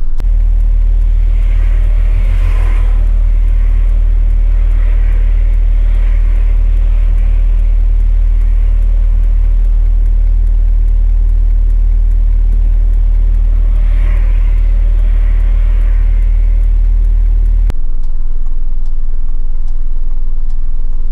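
Cab-interior noise of a 2-ton truck on the move: a loud, steady low rumble of engine and road. The rumble drops away sharply about 18 seconds in.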